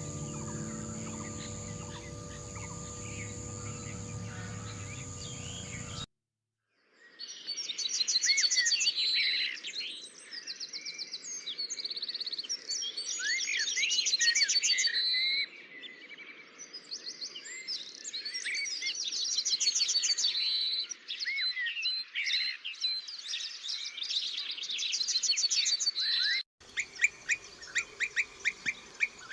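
Many small birds chirping and trilling over one another in rapid repeated notes, in spliced recordings with an abrupt change near the end. For about the first six seconds there is instead a steady hum of held tones, which cuts off suddenly into a second of silence.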